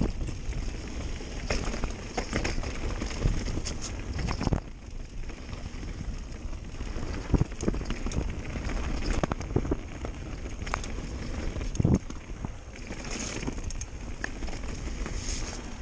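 Mountain bike riding fast down a dirt and rock trail: tyres rolling over the ground with frequent rattles and knocks from the bike over bumps, and wind rumbling on the microphone.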